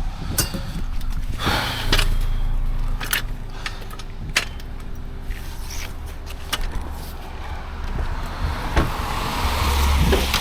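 Motor vehicle running with a steady low rumble, with scattered clicks and knocks and a brief rushing noise about a second and a half in.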